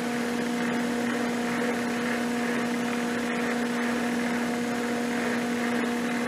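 Knee mill running with a steady electric hum while a 1 3/4-inch roughing end mill turns slowly, cutting dry into the bore.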